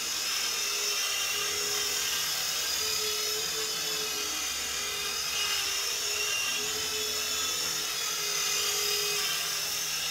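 Sky Rover Vigilante toy coaxial RC helicopter in flight: the steady, high-pitched whine of its small electric motors and spinning rotors, wavering slightly in pitch as the throttle and controls are moved.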